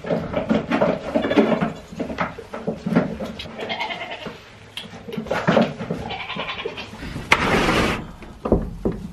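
Goats and goat kids bleating, with scuffling and knocks from hooves on a wooden feeder stand. A short, loud rasping noise comes near the end.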